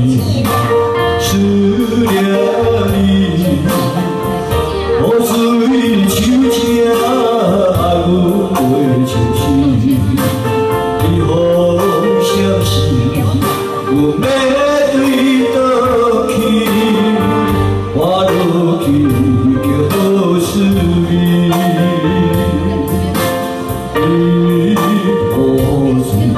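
A man singing a slow song into a microphone, with an electronic keyboard playing the accompaniment and a steady rhythm beat.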